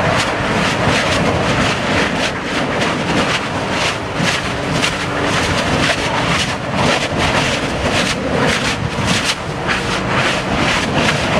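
Kilauea lava fissure erupting: a loud, continuous rushing noise of venting gas broken by irregular bursts and crackles of spatter.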